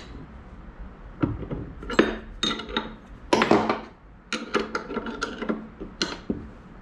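Hand wrench tightening a bolt on a metal rod-holder bracket: irregular metallic clicks and knocks of the tool on the bolt and bracket.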